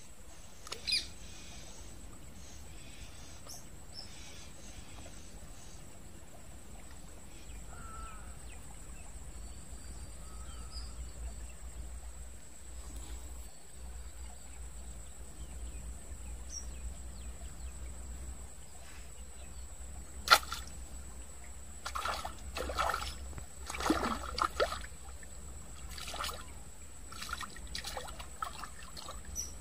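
Quiet outdoor ambience with a few faint bird chirps, then, in the last third, a sudden sharp sound followed by irregular bouts of splashing as a hooked tilapia thrashes at the water's surface while being pulled in.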